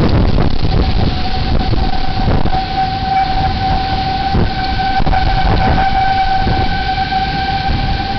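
Outdoor tornado warning siren sounding a steady tone that comes in about a second in, under heavy wind buffeting the microphone.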